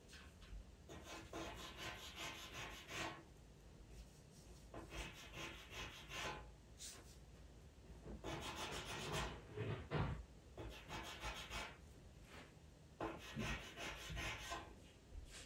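Pastel pencil scratching on Pastelmat paper in quick, short fur strokes, coming in four flurries with short pauses between.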